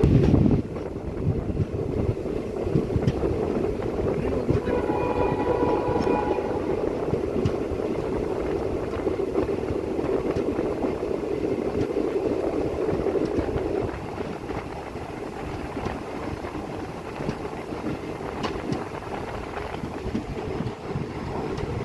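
Passenger train running on the track, heard from on board: a steady rumble of wheels and coach with scattered clicks, and a brief high tone about five seconds in. It gets a little quieter about fourteen seconds in.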